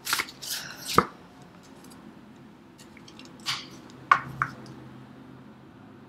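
Tarot cards being handled on a table: a second of shuffling rustle, then a single sharp knock about a second in, and three lighter taps around the middle.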